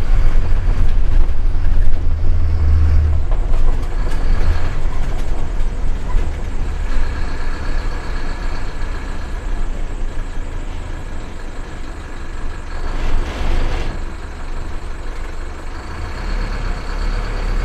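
Bus engine and road noise heard from inside the driver's cab while driving, a deep low rumble that is loudest at first and then eases off. A brief rushing noise comes about thirteen seconds in.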